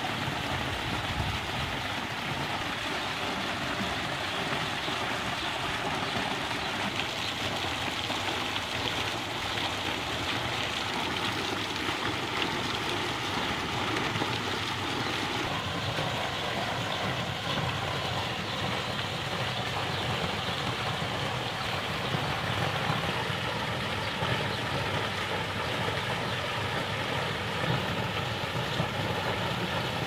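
Water cascading down an artificial rock fountain and splashing into its pond, a steady rushing.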